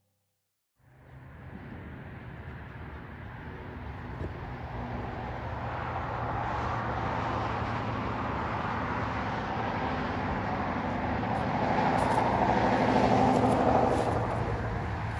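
Motor vehicle running: a steady low engine hum with road noise that grows gradually louder for about twelve seconds, then eases near the end.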